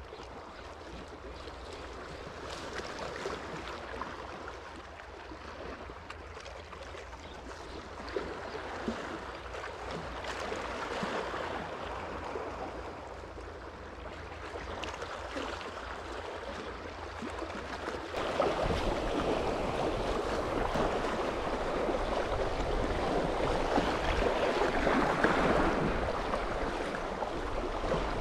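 Sea water washing and lapping at the shoreline, a steady wash of water noise that becomes louder about two-thirds of the way through.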